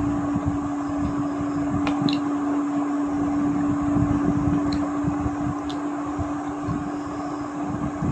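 Electric fan running: a steady hum with a gusty low rumble of moving air on the microphone.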